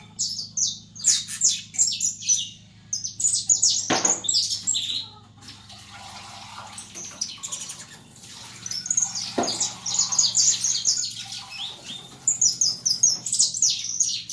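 Male saffron finch (canário-da-terra) in heavy moult giving bursts of rapid, high chirps, calling rather than singing out its full song. Two sharp knocks come about four and nine seconds in, over a faint steady low hum.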